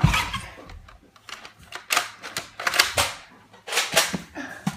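A quick, uneven series of sharp plastic clacks and snaps from toy foam-dart blasters being primed and fired at close range: the loudest comes right at the start, then a cluster follows about two to four and a half seconds in.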